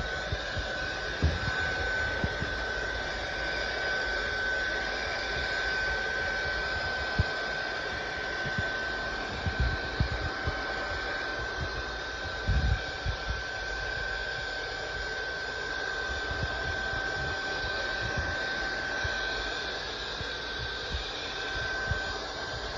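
SunSare X7A cordless stick vacuum cleaner running: a steady high motor whine over the rush of air, with a few low knocks scattered through it.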